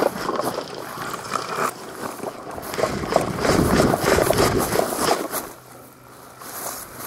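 Close rustling and scraping of a person moving, with gear and clothing brushing against the camera, dotted with small clicks and knocks. It eases off to a quieter stretch about five and a half seconds in, then picks up again.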